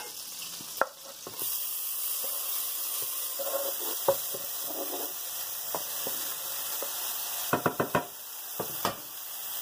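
Minced garlic and green chili sizzling in hot oil and butter in a pan, the sizzle growing louder about a second and a half in. Sharp knocks of a wooden cutting board and wooden spatula against the pan come now and then, with a quick cluster of them near the end.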